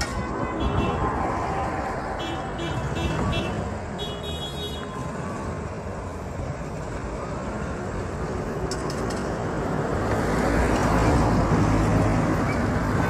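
Street traffic noise with a low rumble. A grey SUV approaches and passes, growing louder over the last few seconds. A few seconds in come two short runs of rapid high beeps.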